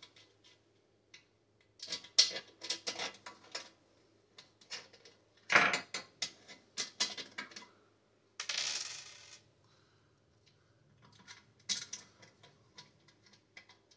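Metal heater parts and hardware clinking and knocking as they are handled and fitted during assembly, in scattered sharp clicks with one louder knock near the middle, and a hissy sound about a second long a little after it.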